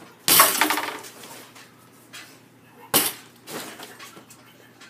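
Two basketball shots striking the metal rims and chain nets of a double-hoop basketball game: each is a sharp clank followed by a brief jangling ring, about two and a half seconds apart.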